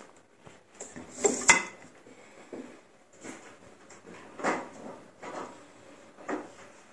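Metal spoon clinking and scraping against a ceramic bowl and plate: a handful of separate knocks and scrapes, the sharpest a loud click about one and a half seconds in.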